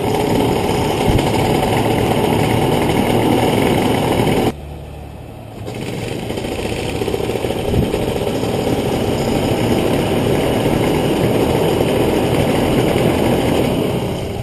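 WalkerJet paramotor's two-stroke engine running with its caged propeller turning. The sound drops off suddenly about four and a half seconds in, comes back within a second or so, and winds down near the end as the engine stops.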